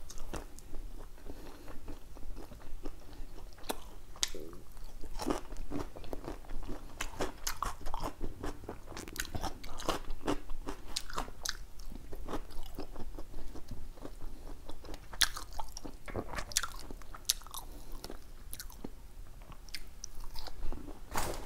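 A person chewing and biting food close to a clip-on microphone, with scattered crunches and sharp mouth clicks at an uneven pace.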